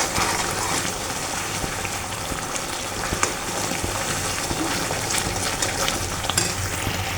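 Jaggery syrup bubbling and sizzling steadily in a pan as it cooks down and thickens toward the stage where it rolls into a ball, with a few faint clicks.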